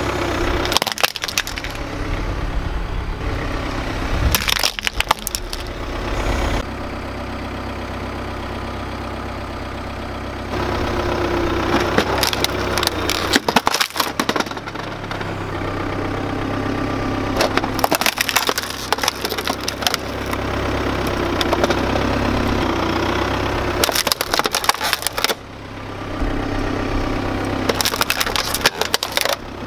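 A car tyre slowly rolling onto and crushing hard plastic objects, among them an ASUS flat-panel gaming monitor, with loud plastic cracks and crunches every few seconds over the steady low hum of the car's idling engine.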